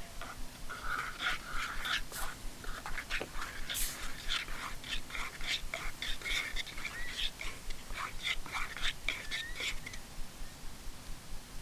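Birds calling: many short chirps and chattering notes, some with small rising or falling slides, with a few brief rustles.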